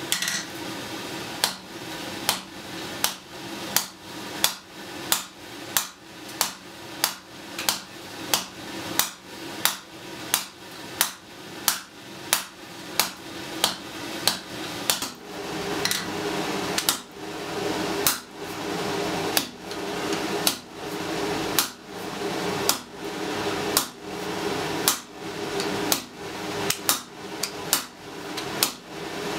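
Blacksmith's hand hammer striking red-hot iron on an anvil in a steady rhythm, a little over one blow a second, with the anvil ringing on between blows.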